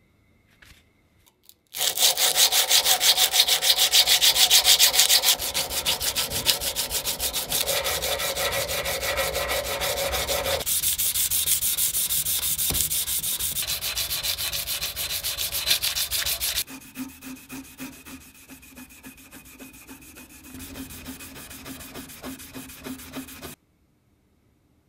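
Hand sanding of the steel body of a 1930s Adriance adjustable wrench: sandpaper rubbed in rapid back-and-forth strokes over metal held in a vise. The strokes are loudest at first, turn softer a few seconds in and clearly quieter about two-thirds of the way through, then cut off suddenly near the end.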